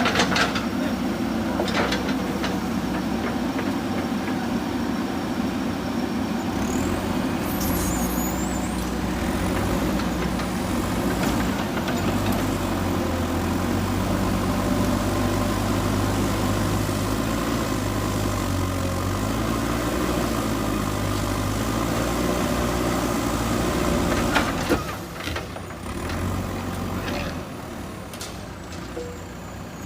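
JCB 3DX backhoe loader's diesel engine working under load, its pitch rising and falling as the machine works. It drops noticeably quieter a few seconds before the end.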